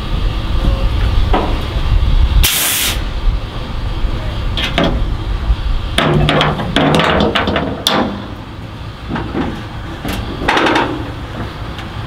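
A short, loud hiss of compressed air from a truck's air brake system about two and a half seconds in, then a string of clunks and knocks.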